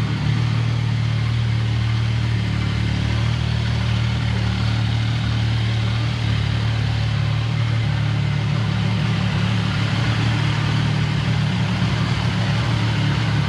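CFMoto 675SR's three-cylinder engine idling steadily just after a cold start, warming up before being revved.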